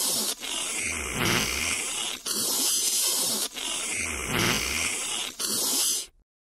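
Cartoon slurping sound for an anteater drinking pop through its tongue: a string of loud, noisy slurps, each one to two seconds long, that cut off sharply about six seconds in.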